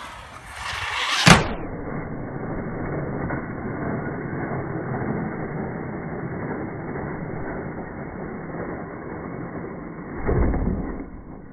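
Radio-controlled truck jumping off a ramp, heard in slowed-down slow-motion audio. A rising whoosh ends in a sharp knock about a second in, then a low, dull rumble runs while it is airborne, and a heavy thump comes near the end as it lands on the grass.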